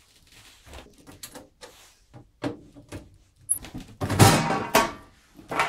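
Sheet-metal front cover of a Tektronix 113 delay line cabinet being handled and pulled off: small clicks and knocks, then a loud scraping, rattling burst of metal about four seconds in and another near the end.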